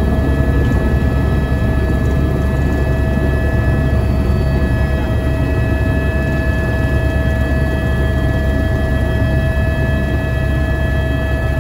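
Helicopter turbine engine and rotor running, heard from inside the cabin: a steady low rumble with several steady high whining tones over it.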